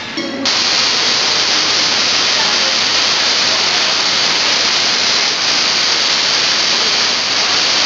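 Tesla coil firing, its purple streamer sparks off the toroid giving a loud, steady hiss that cuts back in sharply about half a second in after a brief pause.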